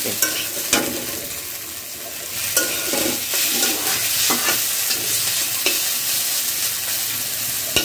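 Vegetables sizzling as they fry in a metal kadai, with a spatula stirring them and scraping against the pan in short, irregular strokes.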